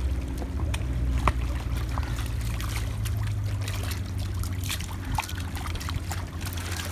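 Shallow seawater lapping and splashing on shoreline rocks, with small splashes and trickles as a plastic cup is dipped in and scooped full, over a steady low rumble.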